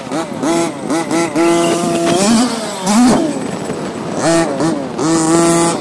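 Losi MTXL 5th-scale RC truck's OBR G340 two-stroke gas engine, revved in quick throttle blips whose pitch climbs and drops again and again. It is held at high revs for about half a second near the middle and again near the end.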